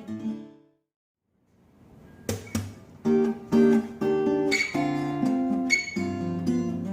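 Epiphone AJ-220SCE acoustic guitar (solid spruce top, mahogany body) played: chords ring out and fade to a short silence about a second in, then playing resumes with two sharp strums and carries on in steady picked and strummed chords.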